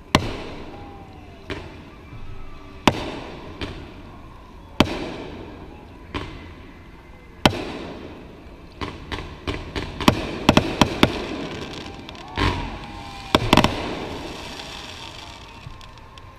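Aerial fireworks going off overhead: sharp bangs about a second or so apart, each trailing off in echo, then a quick flurry of bangs about two thirds of the way through and a deeper boom with a couple more bangs near the end.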